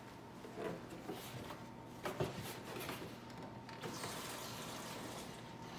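Faint knocks from handling a small cardboard-box toy dishwasher, then a soft, steady hiss of water being poured into it about four seconds in, to test whether it holds water.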